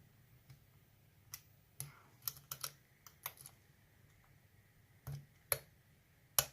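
A lock pick working the pins inside a pin-tumbler challenge lock, which is held under tension: about ten small, sharp metallic clicks and taps at irregular intervals, bunched in two clusters.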